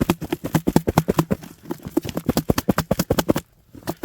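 Raw chicken wings being shaken with olive oil and a dry spice mix to marinate them. This makes a fast, even run of wet slapping knocks, about six a second, which breaks off briefly near the end and then starts again.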